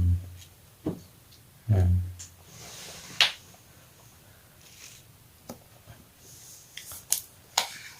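Hands handling a sealed, shrink-wrapped laptop box: two dull thumps near the start, then scattered light taps and clicks with a faint rustle.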